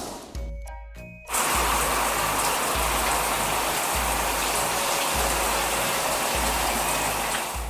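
Water spraying steadily from an overhead shower head, a rinse sound effect that starts about a second in and holds as an even hiss.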